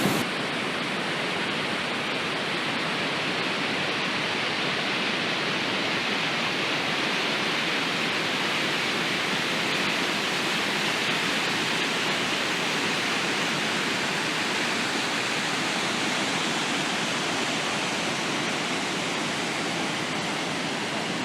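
Waterfall on the river rushing, a steady, even noise of falling water.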